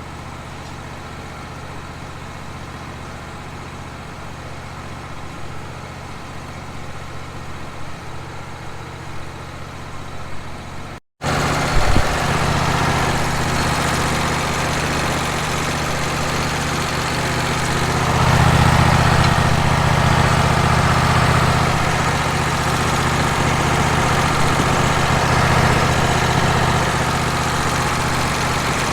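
An engine running steadily. About eleven seconds in the sound cuts abruptly and comes back louder with more hiss, swelling further for several seconds partway through the second half.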